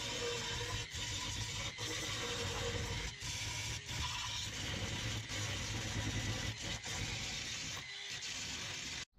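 Grinder grinding down welds on the steel body panels of a 1959 Ford F-100, a steady harsh grinding noise with brief breaks. It cuts off suddenly just before the end.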